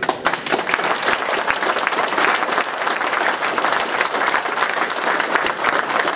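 Audience applauding: many people clapping together, a dense, steady clatter that starts at once, louder than the talk before it.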